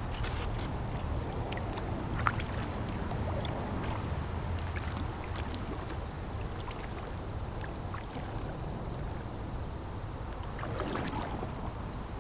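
Kayak paddle strokes: the blades dip and splash in river water, with scattered drips and a sharp knock about two seconds in. A low, steady rumble runs underneath.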